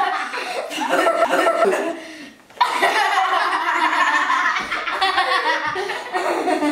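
Two girls laughing hard together, breaking off briefly about two seconds in and then laughing again.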